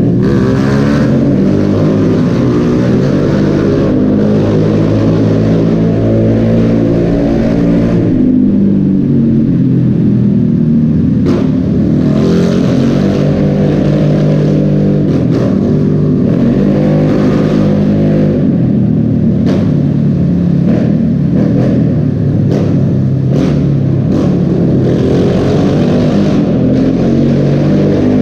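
Two small 125 cc Honda motorbike engines, a PCX125 scooter and an MSX125, revving up and down again and again inside a road tunnel, with a few sharp pops along the way.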